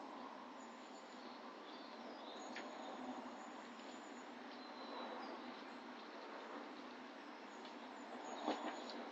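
Songbirds chirping faintly with short high calls over a steady background hiss, with a soft knock about two and a half seconds in and another near the end.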